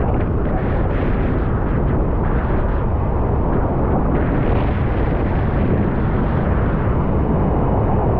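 Steady, loud rushing of a huge waterfall, Niagara's American Falls, pouring down in an unbroken roar of water.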